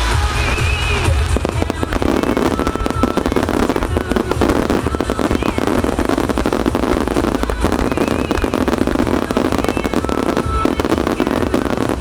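Fireworks finale barrage: a continuous rapid stream of shell bursts and crackling from a starmine, with music playing along through loudspeakers.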